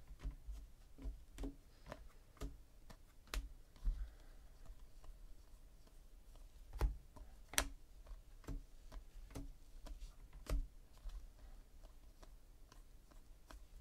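Paper trading cards being slid off a stack and moved from hand to hand, making irregular light clicks and snaps as each card is flicked over, a few of them sharper than the rest.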